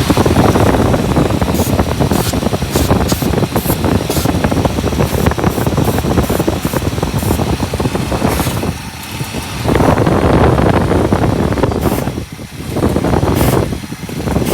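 1964 Imperial's 413 V8 running with the air cleaner off, its level dipping a few times in the second half. Short hisses repeat through it: brief sprays around the carburetor hunting for a vacuum leak at the base gasket, the cause of its surge.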